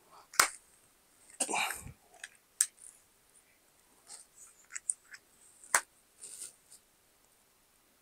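SoundPeats Air5 wireless earbuds and their plastic charging case being handled: a scatter of sharp plastic clicks and short rustles, the loudest clicks about half a second in and near six seconds.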